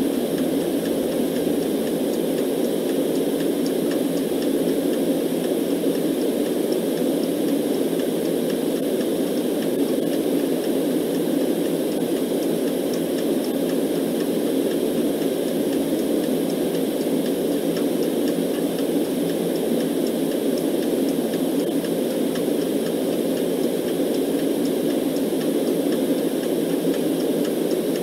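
Steady white noise, its energy mostly low and muffled, with faint clock ticks above it.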